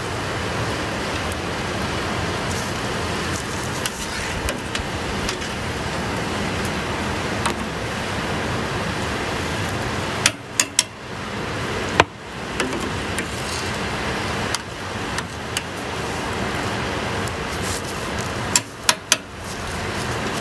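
Maple sap at a rolling boil in a large wood-fired evaporator pan: a steady bubbling hiss, broken by a few sharp pops about ten seconds in and again near the end.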